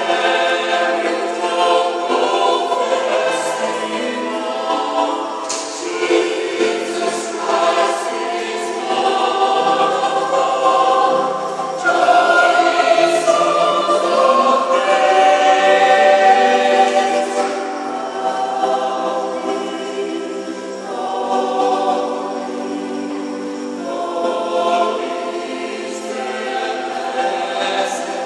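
Small mixed choir of men's and women's voices singing a Christmas cantata in harmony, holding long chords, swelling louder in the middle and easing back afterwards.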